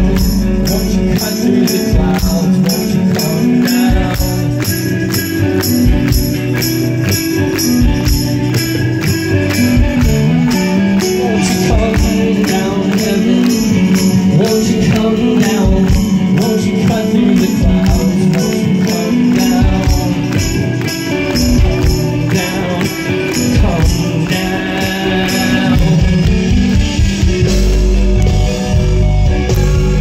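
Rock band playing live: electric guitars, bass and drums with a steady beat, and singing.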